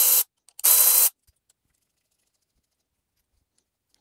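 Milwaukee cordless electric ratchet running in short bursts, backing out the bolt of a valve spring compressor to release the compressed valve spring. One run stops just after the start, a second half-second burst follows about a second in, then it goes quiet.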